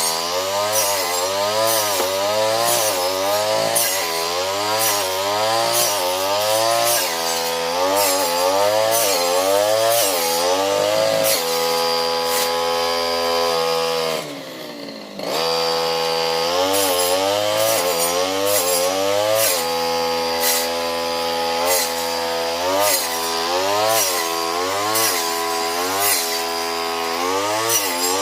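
Two-stroke brush cutter engine running at high revs, its pitch wavering as the blade chops through patchouli plants with many quick ticking strikes. About fourteen seconds in, the engine drops briefly toward idle and then revs back up.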